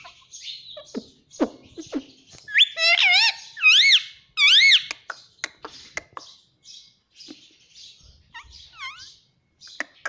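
Indian ringneck parakeet calling: a few seconds in, a run of loud whistles that rise and fall, set among softer scratchy chatter and sharp clicks. The second half is quieter, with only scattered chatter and clicks.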